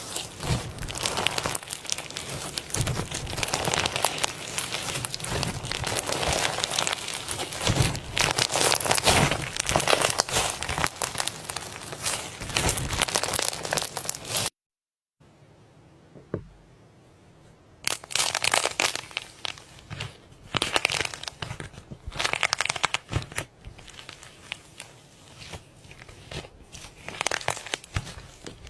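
Slime being squeezed, poked and stretched by hand, giving a dense run of wet crackling, popping and crinkling clicks. About halfway in the sound drops out briefly, stays quiet for a few seconds, then the crackling picks up again.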